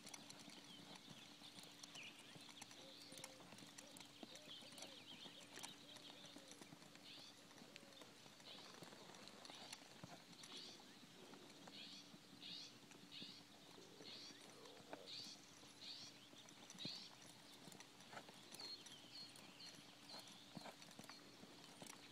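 Faint hoofbeats of a ridden horse, with a steady low hum and a run of short high chirps in the middle.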